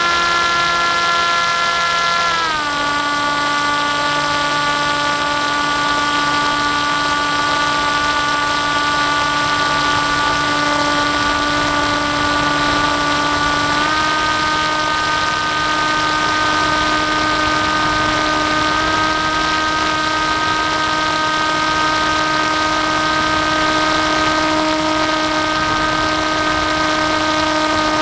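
Onboard sound of an FPV model aircraft's motor and propeller running steadily in flight: a high, even whine over a hiss of rushing air. The pitch drops about two and a half seconds in as the throttle is eased back, and steps up slightly about halfway through.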